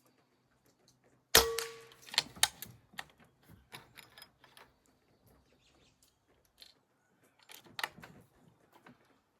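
A suppressed PCP air rifle, a Benjamin Armada, fires once about a second in: a sharp crack with a short metallic ring. It is followed by a run of lighter clicks and knocks, with another cluster near the end.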